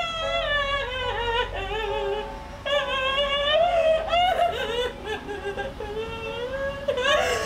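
Music: a high singing voice carries a slow melody of long, wavering notes over a steady held note.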